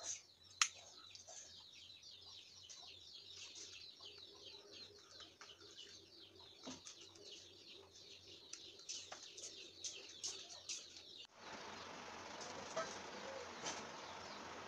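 Small birds twittering rapidly, many short high chirps one after another, with one sharp click about half a second in. The chirping cuts off suddenly about eleven seconds in, leaving a steady hiss with a few faint clicks.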